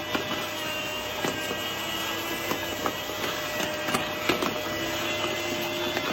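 A steady machine hum with a few level tones running through it, and scattered light clicks or taps.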